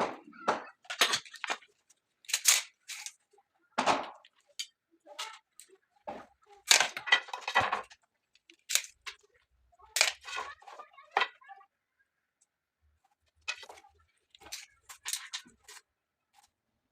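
Irregular clatter of sharp knocks, clicks and short scrapes, as of tools and workpiece parts being handled and set down, with gaps of quiet between them.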